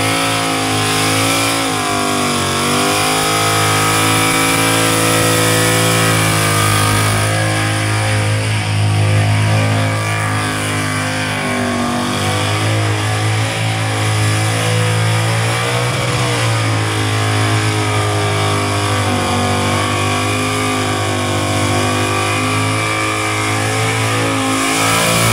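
A burnout car's engine running hard at high revs, its pitch mostly held with brief dips about two seconds in and again about sixteen seconds in, over the hiss of the spinning, smoking rear tyres.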